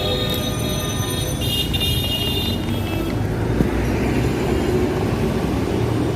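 Street traffic noise: a continuous low rumble of passing vehicles. Steady high tones sound over it for the first two and a half seconds, then stop.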